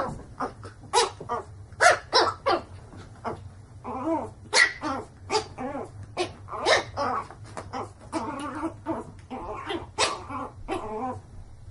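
A pet animal giving a long run of short bark-like calls, about two a second, with a few longer, wavering calls a little past the middle.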